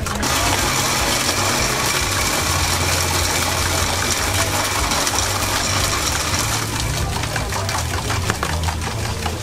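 A small engine running steadily with a low hum, under a hiss that eases off about six and a half seconds in.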